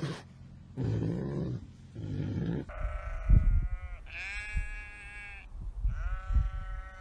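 Animal calls: two low, rough calls, then three long, steady, high-pitched calls of over a second each, starting a little under three seconds in.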